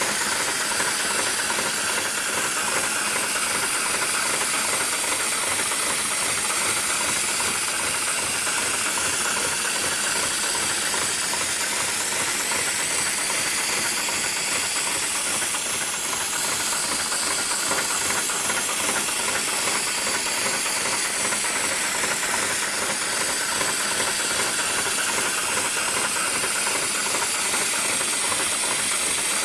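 Heavy-duty programmable industrial sewing machine running continuously, its needle stitching rapidly under a steady hiss of air.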